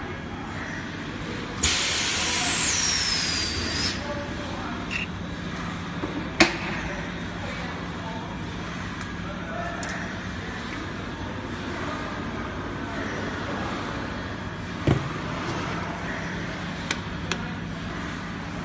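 PET bottle blow-moulding machine venting compressed air from a freshly blown 5-gallon bottle: a sudden loud hiss with a whistle falling in pitch for about two seconds, cut off abruptly. It is followed by a sharp clack and a few knocks over a steady machine hum.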